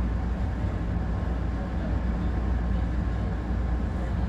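Steady low rumble of a Hankyu 1000 series train running, heard from inside the car.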